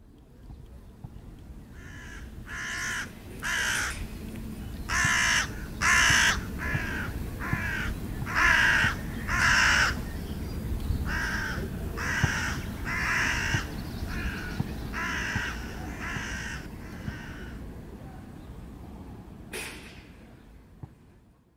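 Hooded crows cawing: a long run of harsh caws, roughly one a second, some loud and close, others fainter, over a steady low rumble. A single sharp click comes near the end.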